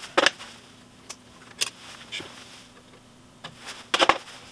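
Handling noise from wiring a breaker in a sheet-metal air-handler cabinet: scattered sharp clicks and knocks of wire and metal, with a loud cluster just after the start and another about four seconds in, over a faint steady hum.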